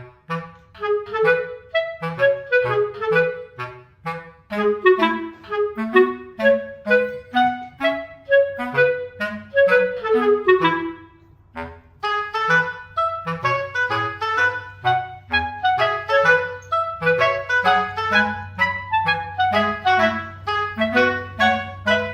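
Background music: an instrumental tune of short, quick notes over a bass line, with a brief break about halfway through.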